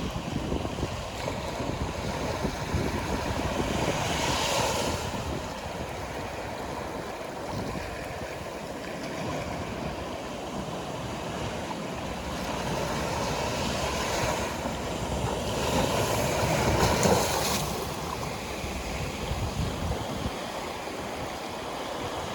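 Sea waves breaking and washing on a beach, with low wind rumble on the microphone. Several surges of surf hiss rise and fall, the loudest about seventeen seconds in.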